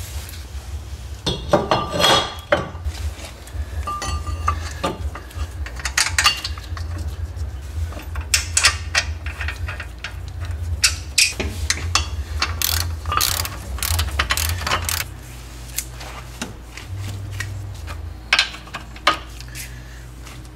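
Socket ratchet clicking and metal tools clinking on the bolts of a car's front brake caliper bracket. The sharp clicks come in irregular runs over a low steady hum.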